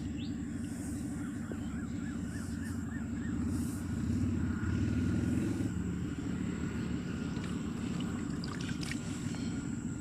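Stream water running and burbling in a steady low rush, with a run of faint repeated chirps a couple of seconds in and a thin high steady buzz, likely insects.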